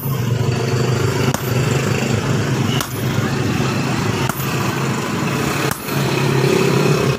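Hammer blows on metal during blacksmith forging, one about every second and a half, each with a brief high ring, over a steady motor drone.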